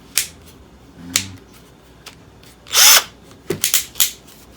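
Apollo 10.8 V cordless drill being tried out: a few sharp clicks from its switches, then a short whir of the motor spinning up and back down about three seconds in, followed by more quick clicks and brief whirs.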